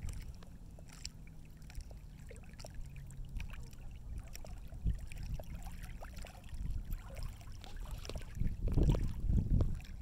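Small waves lapping and splashing among the stones of a rocky shoreline, many small irregular splashes, with wind rumbling on the microphone underneath; a stronger gust swells near the end.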